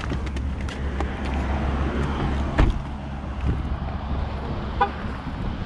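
A car running with a steady low hum, heard with a faint background hiss, and a sharp click about two and a half seconds in.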